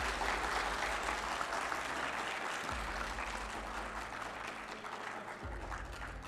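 Audience applauding, an even patter of many hands that eases off slightly toward the end.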